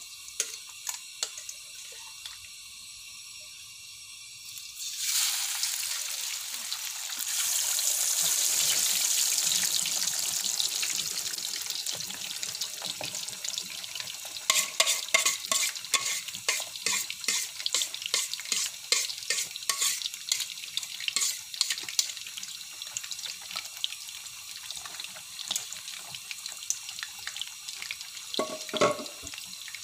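Whole tilapia going into hot oil in a wok: the oil bursts into a loud sizzle about five seconds in. It then settles into steady deep-frying with rapid popping and crackling spatters, and a short knock comes near the end.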